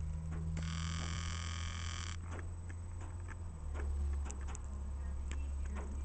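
Blue Bird All American front-engine school bus running with a steady low rumble as it pulls away. About half a second in, a high-pitched tone lasts about a second and a half, and light clicks and ticks are scattered throughout.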